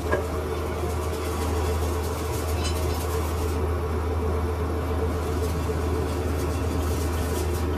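Lathe running steadily, a low hum with a steady higher tone above it.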